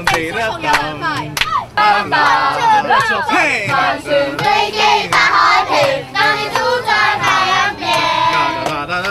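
Several voices singing and vocalising together, some sliding up and down in pitch, with a few sharp hand claps in the first second and a half.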